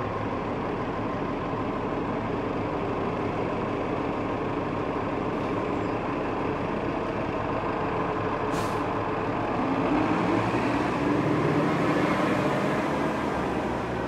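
2018 Gillig Advantage Low Floor transit bus running at a stop, with one short hiss of air about eight and a half seconds in. About ten seconds in the engine grows louder as the bus pulls away.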